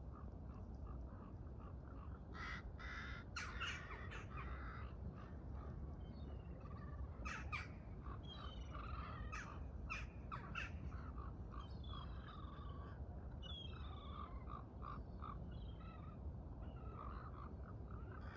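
Birds calling again and again in short calls, a few overlapping, over a steady low rumble.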